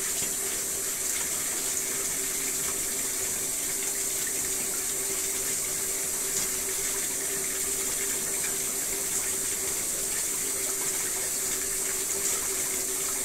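Steady hissing noise with a faint constant hum underneath, unchanging throughout.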